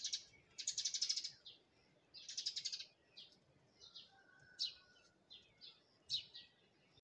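Pigeon squabs a few days old squeaking: three buzzy bursts of rapid, high-pitched peeps in the first three seconds, then single short squeaks every second or so. These are the food-begging calls of nestling pigeons.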